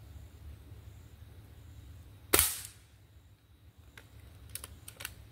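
A single shot from a Gamo Swarm Whisper .22 break-barrel air rifle about two seconds in, a sharp crack with a short tail. Several lighter clicks follow near the end as the rifle is handled.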